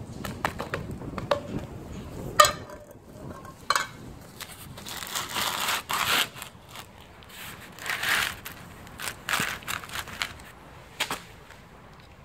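A cat crunching dry kibble: irregular crunching clicks, the sharpest about two and a half seconds in, with a few short rustling bursts in the middle.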